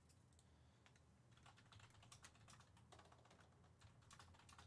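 Faint typing on a computer keyboard: quiet, irregular key clicks that begin about a second and a half in.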